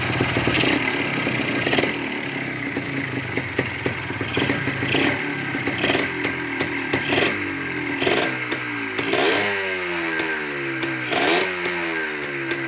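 Yamaha DT250's single-cylinder two-stroke engine running, blipped on the throttle again and again, the revs jumping up and falling back each time.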